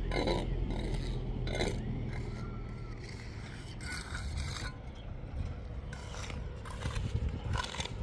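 A handful of short scrapes, about five, spread irregularly, over a steady low rumble.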